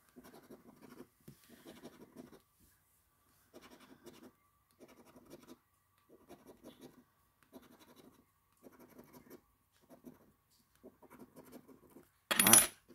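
A coin scraping the coating off a paper scratch-off lottery ticket in short repeated strokes with brief pauses between them. A brief, loud rush of noise comes near the end.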